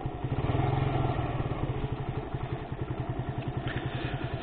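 Sinnis Max 2 motorcycle engine running steadily on the move through an aftermarket exhaust, with wind noise on the helmet mic. The engine swells a little from about half a second to a second in.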